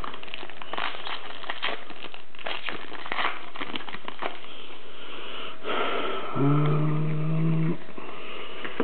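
Foil trading-card pack crinkling and tearing open, with cards rubbing and sliding as they are fanned. About six seconds in, a low steady hum sounds for about a second and a half.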